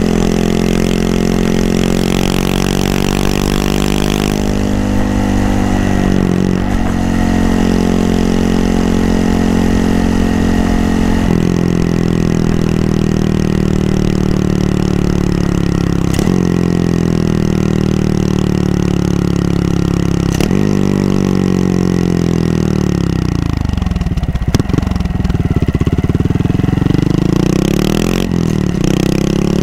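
Honda Monkey 125's single-cylinder four-stroke engine under way, its pitch stepping with gear changes in the first dozen seconds, then dropping steeply as the bike slows, and rising again near the end as it speeds back up.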